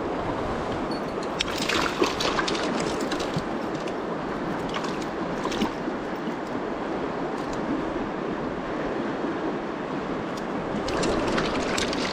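Steady rush of a shallow river running over stones, with scattered short splashes and clicks as a rainbow trout in a landing net is handled and unhooked: a cluster about two seconds in, another about five seconds in, and more near the end.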